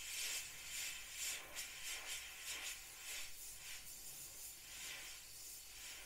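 Gaahleri Mobius airbrush spraying paint: a thin airy hiss that swells and fades in short surges.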